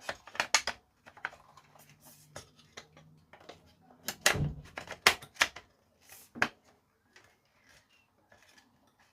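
Hands fitting small parts of a tuner: a scattered series of sharp clicks and taps, the loudest few about four to five seconds in.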